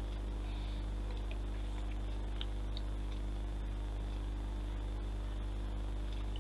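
Steady low hum with a few faint, light ticks of small plastic model track parts being fitted into place.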